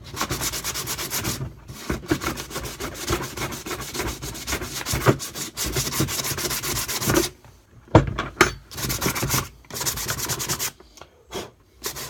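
Sandpaper (70 grit) rubbed in rapid back-and-forth strokes over the split top of a chicken drinker, roughing up the surface ahead of a fibreglass repair. The sanding breaks off briefly twice, once a little past the middle and again near the end.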